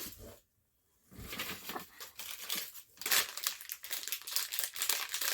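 Plastic packaging crinkling and rustling as it is handled, starting about a second in and running on in a dense crackle.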